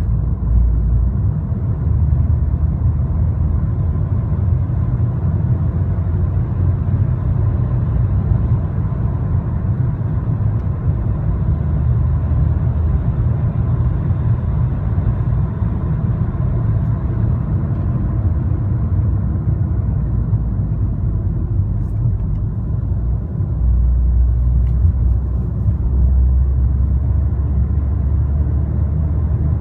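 Volkswagen Tiguan with the 2.0 TSI turbocharged four-cylinder petrol engine running: a steady low rumble with a faint constant high tone above it, swelling a little in the lows about three quarters of the way through. It is the extraneous noise the owner is recording from the car.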